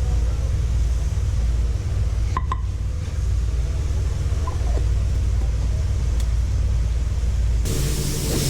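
A steady low machine rumble, with two sharp clicks about two and a half seconds in. A hiss comes in near the end.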